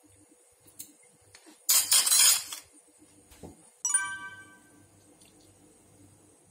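A loud rushing noise lasting about a second, then a single bright ringing clink that dies away over about a second.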